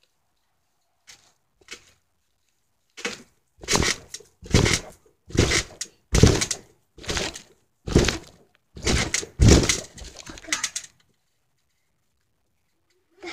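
A child bouncing on a trampoline, heard from on the mat: a string of about ten loud thumps, one bounce a little under every second. They start about three seconds in and stop a couple of seconds before the end.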